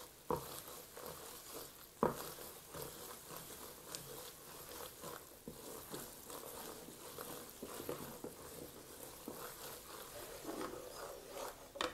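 Wooden spoon stirring a thick starch-and-butter paste in a metal bowl while it roasts over heat: soft, irregular scraping and small clicks against the metal, with a sharper knock about two seconds in.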